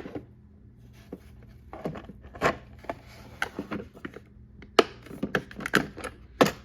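Small hand tools and bits being picked up, shifted and set down in a tool-cart drawer: irregular clicks and clatters, one sharp click right at the start and a quicker cluster of them in the second half.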